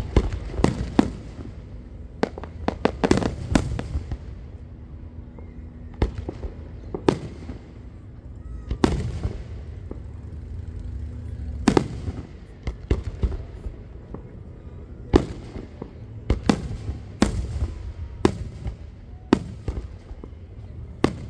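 Aerial fireworks shells bursting in an irregular series of sharp bangs, more than a dozen, some coming in quick clusters of two or three.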